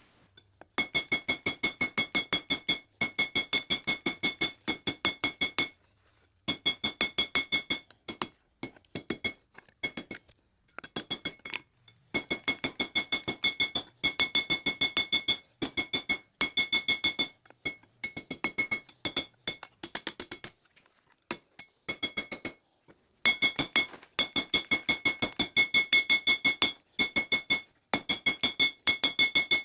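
Hammer blows on an anvil drawing out the hot coil-spring steel of a knife's handle: rapid, regular strikes in runs of a few seconds with brief pauses between, the anvil ringing at a high steady pitch with each run.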